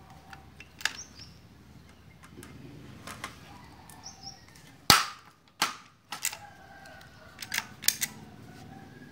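Hand-held staple gun firing staples into a wooden board: a series of sharp snaps at uneven intervals, the loudest about five seconds in.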